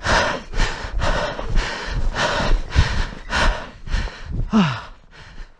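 A man breathing hard and fast close to the microphone, about two heavy breaths a second, out of breath from hurrying on foot. A short falling vocal groan comes near the end.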